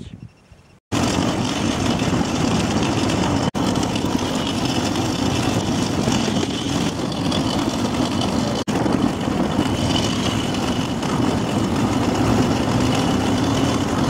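Sidecar motorcycle engine running steadily while riding along a dirt and gravel track, heard from on the bike, starting about a second in and breaking off for an instant twice.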